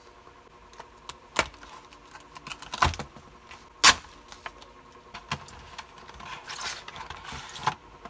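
Stiff clear plastic blister packaging being handled and opened to take out a metal wire stripper, with crinkling and rustling and several sharp clacks, the loudest about four seconds in.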